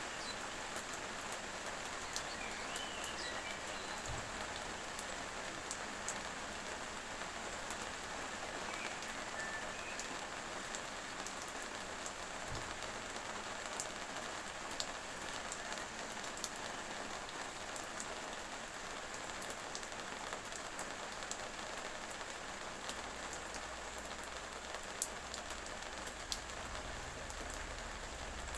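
Steady rain falling, with the close ticks of single drops striking a surface. A few faint short bird chirps come through the rain in the first ten seconds.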